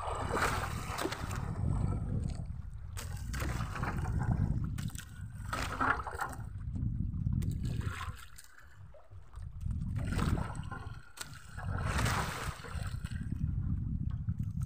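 Choppy sea water sloshing and splashing against the hull of a small fishing boat, with wind buffeting the microphone in a low rumble that swells and fades every few seconds.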